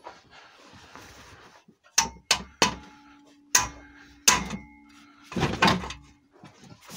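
Hammer blows on the steel hanger of a Peugeot 106's rear exhaust silencer, knocking the rubber silent-block mount loose. Five sharp metallic strikes come quickly one after another, with a faint ringing tone hanging on between them, then a longer, rougher noise near the end.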